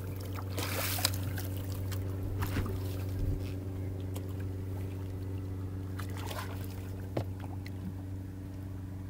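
Boat engine idling with a steady low hum. Water splashes several times beside the hull: about half a second in, again near two and a half seconds, and twice more around six to seven seconds. The splashing comes from a hooked striped bass thrashing at the surface as it is brought alongside.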